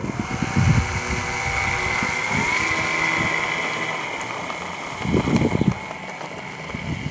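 Electric motor and propeller of an RC aerobatic model plane whining. Its pitch steps up about two seconds in, then slowly sinks and fades. Brief wind buffeting on the microphone about five seconds in.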